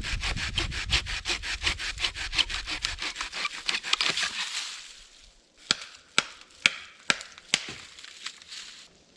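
Hand saw cutting through wood with fast, even strokes, about seven or eight a second, which stop a little under halfway through. About a second later come five sharp snaps, roughly half a second apart.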